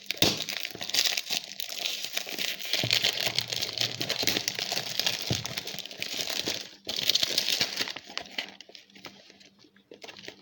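Clear plastic film wrapping torn and crinkled off a perfume box by hand: a dense crackling for about seven seconds, with a short break, then quieter handling of the box near the end.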